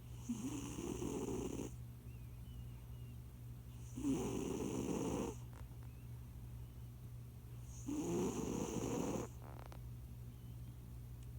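A fat domestic cat snoring in its sleep: three snores about four seconds apart, each lasting a little over a second.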